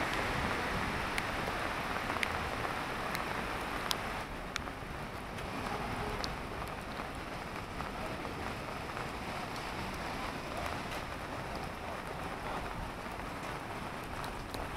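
Steady rain falling on a wet city pavement, an even hiss with a few sharp ticks scattered through it.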